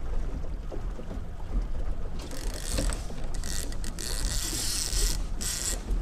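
Fishing line peeling off a trolling reel against its drag, a loud high buzz starting about two seconds in with a few brief breaks. It runs over the steady low hum of the boat's small outboard motor.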